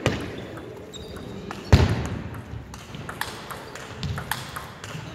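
Table tennis ball clicking sharply off paddles and the table, several times a second, during a rally. A heavy thud about two seconds in is the loudest sound.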